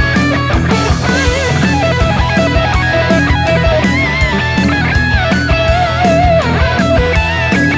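Overdriven electric guitar played through a Plexi amp profile on a Kemper Profiling Amplifier: a lead solo of melodic lines with string bends and vibrato, over a backing track with a steady drum beat and bass.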